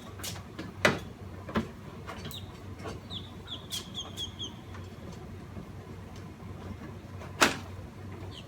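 Sharp metallic clicks and knocks of hand tools and Torx screws being worked under the truck, the loudest about seven and a half seconds in. Between about three and four and a half seconds in, a quick run of about six high bird chirps.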